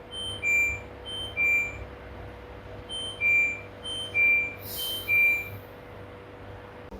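Electronic control-panel beeps from an LG front-loading washing machine: a short higher note followed by a longer lower note, repeated five times, with a longer pause after the second pair. A faint steady hum runs underneath.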